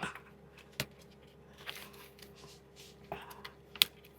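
Sockets and plastic twist-lock socket-rail clips being handled and fitted: a few separate sharp clicks, the loudest near the end, with light rustling between them.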